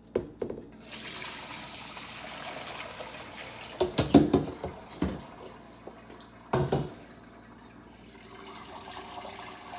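Homemade chicken broth being poured from a pot through a strainer into a pan: a steady stream of liquid splashing, with a few loud clunks of cookware around the middle and again later.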